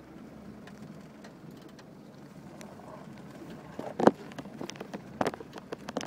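Daihatsu Fourtrak 4x4 heard from inside the cab, driving slowly over a rough, rutted woodland track: steady low running noise with sharp knocks and rattles as the vehicle jolts over bumps. The loudest knock comes about four seconds in and another a second later.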